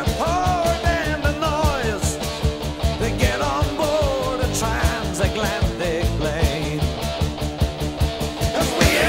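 Rock band recording playing, with steady drums and bass under a wavering lead melody line.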